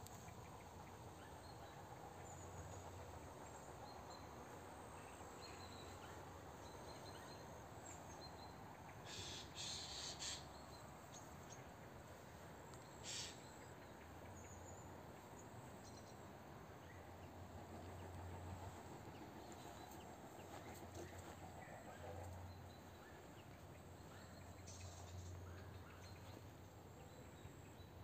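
Faint outdoor ambience with scattered distant bird calls and a faint low hum that comes and goes. A few short, sharper sounds stand out about nine to ten seconds in and again at about thirteen seconds.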